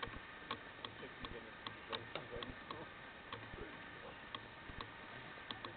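Faint, irregular sharp clicks, several a second, over a low steady hiss and hum, with faint muffled voices in the background.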